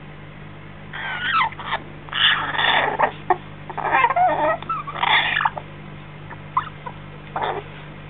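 Baby African grey parrot chick chattering: a run of loud squawks and gurgling calls, some sliding in pitch, from about a second in until about five and a half seconds, then a couple of short chirps.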